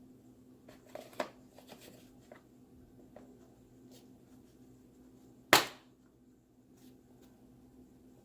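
Hand tools being handled in a plastic tool case: a few light clicks, then one sharp clack a little past the middle.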